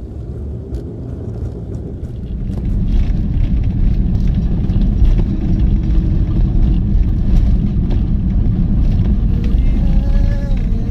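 Car engine and road noise heard from inside the cabin while driving: a steady low rumble that grows louder about two seconds in.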